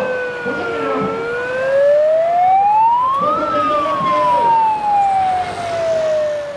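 A siren wailing: its pitch sinks for about a second, climbs for about two and a half seconds, then sinks slowly again. Crowd voices are faint underneath.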